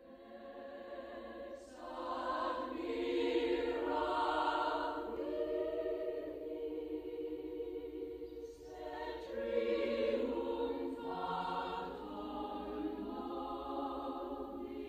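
Background music: a choir singing a slow chant in long held notes, fading in over the first couple of seconds.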